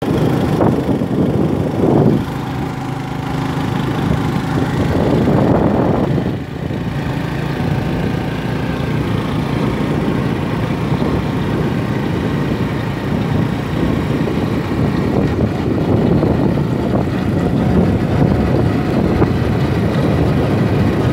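Small motorcycle engine running steadily while riding along a rough road, with rushing noise over it; the engine note eases briefly about six seconds in.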